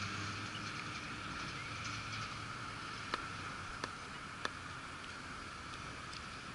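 Steady outdoor background hiss with a faint low hum, broken by three faint sharp clicks a little past the middle.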